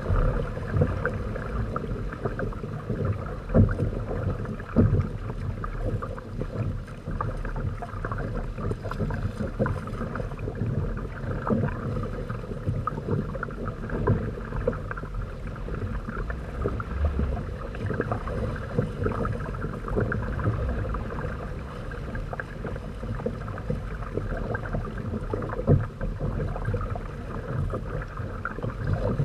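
Lake water rushing and splashing against the plastic hulls of a Hobie Tandem Island trimaran under sail, with a few louder slaps about 3.5 and 5 seconds in and again near the end. A steady low wind rumble sits on the microphone underneath.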